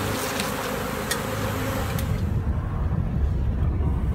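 A honey bee swarm buzzing steadily, with a few sharp clicks, then about two seconds in it gives way to the low rumble of a car driving, heard from inside the cabin.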